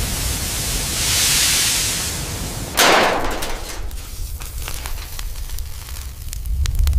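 Steam hissing as red-hot steel is quenched in water, ending in a sudden loud burst of noise about three seconds in. Then scattered crackling and popping over a low rumble.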